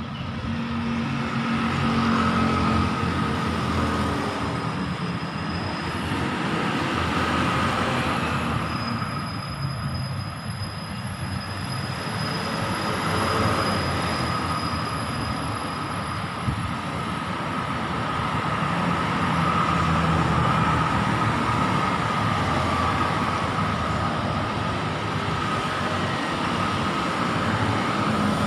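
Road traffic on a wide city street: cars and motorbikes pass, swelling and fading, with a steady high tone running through the noise.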